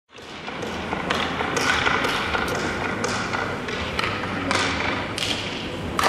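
Hockey pucks being hit with sticks and cracking against the boards: about a dozen irregular sharp knocks that echo through an ice arena, over a steady low hum.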